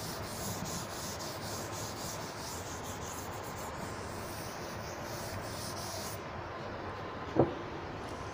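Chalkboard duster rubbing across a blackboard in repeated wiping strokes, erasing chalk; the wiping stops about six seconds in. A short, louder pitched sound follows near the end.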